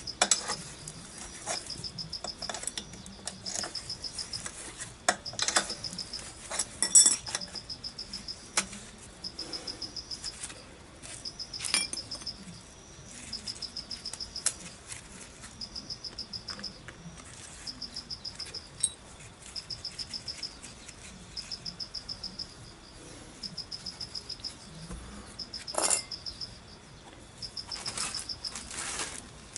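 Sharp metal clinks and knocks from a wrench and loose parts against a scooter engine case, loudest about seven seconds in and again near the end. An insect keeps up high chirping trains about once a second behind them.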